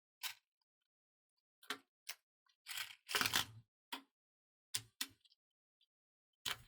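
Matchstick fireworks crackling: a string of short, sharp, irregularly spaced pops and sputters, the longest and loudest burst about three seconds in.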